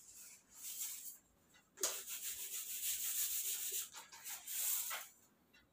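A whiteboard eraser wiped across a whiteboard in three rubbing strokes: a short one near the start, then a long one of about two seconds, then one more of about a second.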